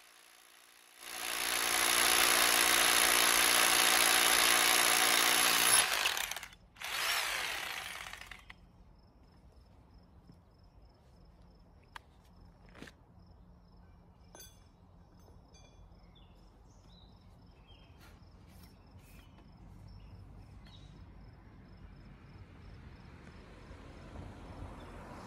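Bosch GBH2-28L SDS-plus rotary hammer drilling into a stone boulder with a 3/4-inch bit. It runs loud and steady for about five seconds, stops, then gives a second short burst that winds down. After that come only a few faint clicks and knocks.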